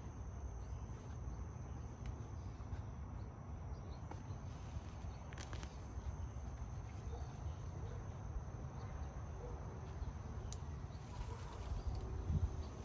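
Crickets or other evening insects trilling in a steady high tone over a low rumble, with a few faint clicks and a louder thump near the end.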